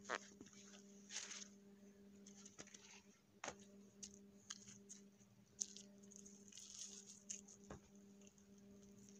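Faint, scattered rustles and small clicks and taps as a cotton towel is handled and flapped and sandals are stepped out of on rock, over a faint steady hum.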